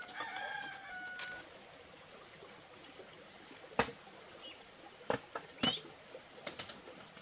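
A rooster crows once, a slightly falling call lasting about a second and a half. After it come several sharp knocks, the loudest about four seconds in and a quick cluster of them between five and seven seconds.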